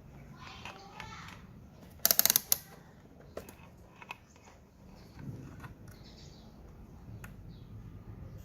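Handling noise from small hard objects: a quick burst of rapid sharp clicks about two seconds in, with scattered single clicks and faint rustling around it.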